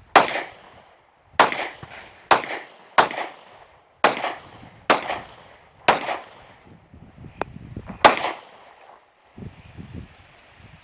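Handgun firing eight shots, one at a time, spaced irregularly about a second apart, each shot ringing out briefly.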